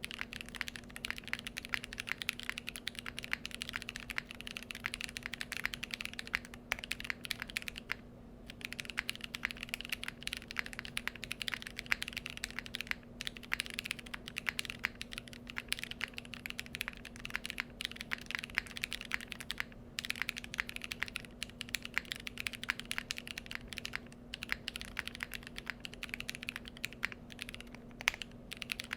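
Fast continuous typing on a custom mechanical keyboard fitted with Naevie r1.5 tactile switches: a dense stream of key clacks and bottom-outs, broken by brief pauses now and then.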